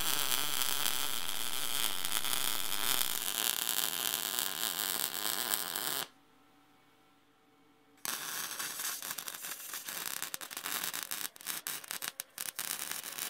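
MIG welding arc running a bead along a steel box seam: a steady, dense crackle for about six seconds that stops. After a pause of about two seconds a second bead starts, crackling and sputtering more unevenly, with brief breaks near the end.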